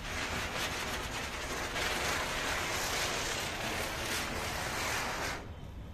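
Sarvanavel Deluxe Chakkar ground spinner firework spinning and throwing sparks: a loud, steady hiss with a fine crackle, falling away about five and a half seconds in as it burns down.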